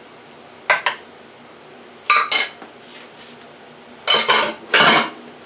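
Metal spoon clinking and scraping against a stainless steel baking pan as mac and cheese is spooned in, in a few short bursts. Near the end come two louder clatters of dishes being handled.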